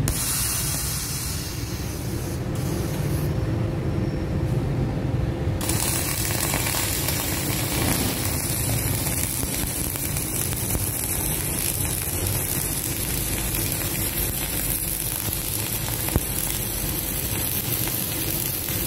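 MIG welding arc from a Jasic MIG 500 (N388) welder laying a straight bead on steel plate: a steady crackling hiss. One brief louder pop comes about sixteen seconds in.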